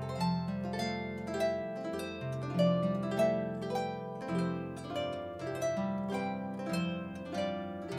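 Solo concert harp playing a flowing piece: a steady stream of plucked notes that ring and fade over held low bass notes.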